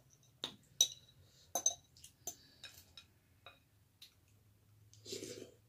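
Close-up eating sounds: about a dozen small, scattered clicks and light clinks, with a short breathy rush near the end.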